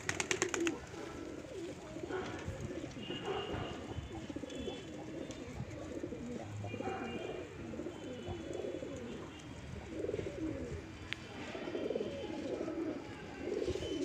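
A flock of domestic pigeons cooing, many low coos overlapping without pause. A brief rapid clatter comes right at the start.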